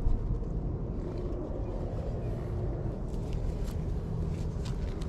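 Steady low rumble of outdoor background noise, with a few faint short scratchy sounds in the second half.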